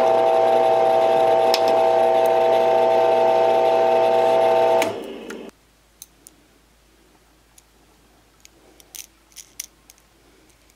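Wood lathe motor running at a steady pitch as it spins a die-cast axle against a riveting tool, forming the axle's mushroom head. It cuts off about five seconds in, followed by a few faint clicks of small metal parts being handled.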